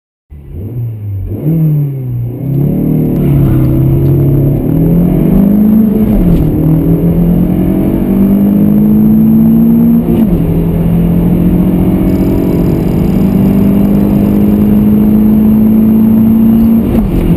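Car engine sound from a VW Polo GTI and a BMW 120i accelerating flat out from standstill, apparently mixed together. The engine note climbs in pitch through each gear and drops sharply at each upshift, about four times.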